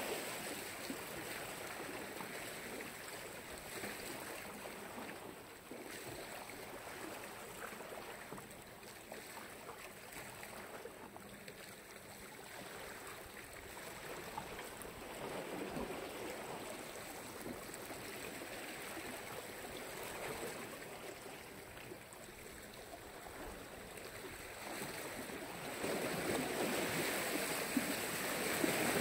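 Black Sea waves washing onto the shore, a steady wash that swells and ebbs every several seconds and grows louder near the end.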